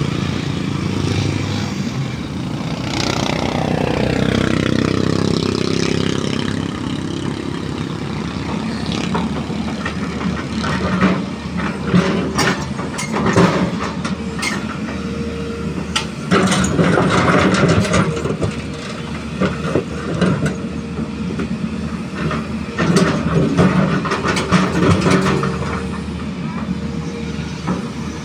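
Heavy diesel engines running steadily. A passing vehicle sweeps down in pitch in the first few seconds, and a long string of sharp knocks and clanks follows through the middle and later part.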